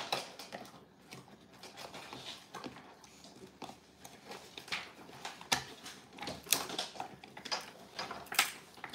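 Dogs chewing dehydrated pig ears, with irregular crisp crunches and cracks, a few louder ones past the middle and near the end.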